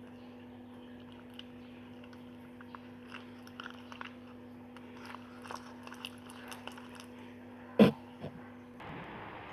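Slime being squished and worked by hand: a string of small, scattered wet clicks and crackles over a steady low hum. Near the end there is a single loud knock.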